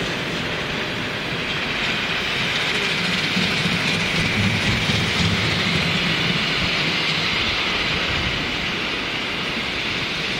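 Miniature live-steam locomotive and its passenger riding cars running along a small-gauge ridable track, the wheels clattering steadily on the rails.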